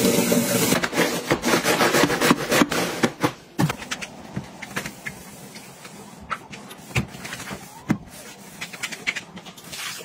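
Water pouring into a plastic mop bucket, a dense splashing rush with knocks and clatter of handling. After about three and a half seconds it stops, and only quieter scattered clicks and knocks of handling follow.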